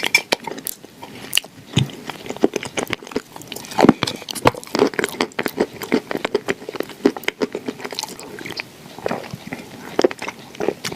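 Close-up biting and chewing of a crumbly, crunchy food, with many irregular crisp cracks and a louder bite about four seconds in.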